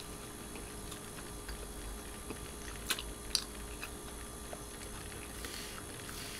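Faint mouth sounds of sipping a drink through a straw, with a couple of small clicks about three seconds in, over a steady faint hum.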